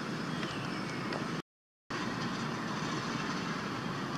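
Steady outdoor background noise, an even rumbling hiss with no distinct events, broken by a half-second dropout to dead silence about one and a half seconds in.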